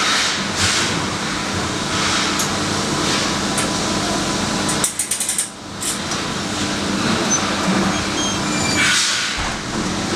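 Hand-disinfection hygiene station with turnstile making a steady mechanical whirr and hiss. A quick run of sharp clicks comes about five seconds in.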